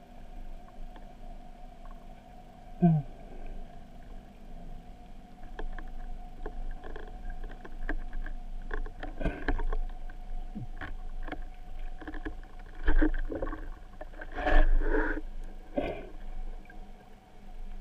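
Muffled underwater sound heard through a camera on a speargun: a steady faint hum with scattered clicks and knocks. There is a short dull thud about three seconds in, and louder rushing bursts later on, the strongest near the end.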